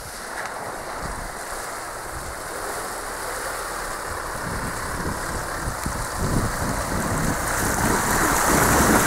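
Isuzu D-Max pickup driving slowly through a waterlogged, muddy rut, engine running and tyres churning through water and mud. It grows louder as the truck comes up close over the last few seconds.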